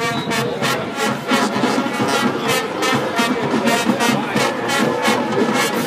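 High school marching band playing: brass with drums and cymbals on a steady beat.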